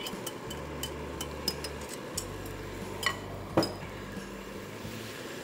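Light clinks and scrapes of a utensil against a mixing bowl and a steel kadai as yogurt masala paste is scraped into simmering tomato gravy, with two sharper knocks about three and three and a half seconds in.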